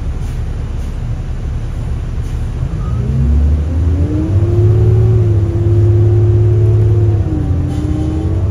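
Cummins ISL diesel engine and Allison B400R automatic transmission of a 2005 New Flyer D40LF city bus, heard from inside the passenger cabin. It rumbles low at first. About three seconds in the bus pulls away and the engine note climbs and grows louder. Near the end the pitch drops once as the transmission shifts up, then climbs again.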